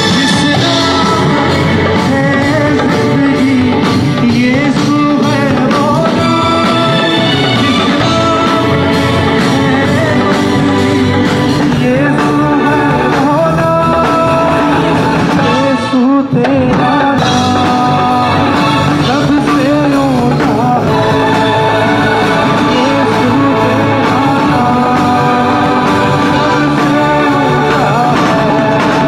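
A live band playing loudly: a drum kit and an electric guitar keep a steady beat under a singing voice carrying the melody, with a momentary break about halfway through.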